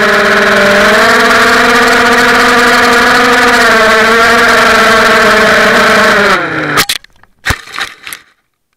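Brushless motors of a ZMR 250 racing quadcopter (DYS 1806 motors) whining steadily in flight, the pitch wavering slightly. About six and a half seconds in the whine winds down and cuts off, followed by a few sharp knocks as the quad crashes into tall grass.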